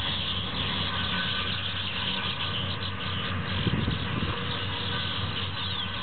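Outdoor ambience: a dense, continuous high chattering or buzzing chorus over a steady low rumble like distant traffic, with a few brief low bumps about four seconds in.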